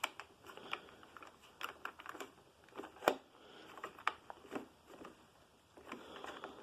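Irregular clicks and knocks of a plastic upright vacuum cleaner being handled and worked on with its motor off, with a sharper knock about three seconds in.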